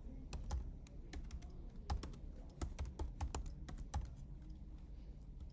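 Typing on a computer keyboard: a run of irregular keystrokes, a few a second.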